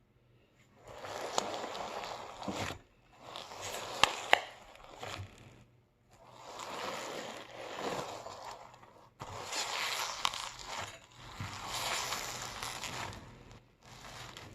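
Putty slime packed with foam beads being kneaded and squeezed by hand, a wet squishing in five long squeezes of one to three seconds each, with two sharp pops about four seconds in.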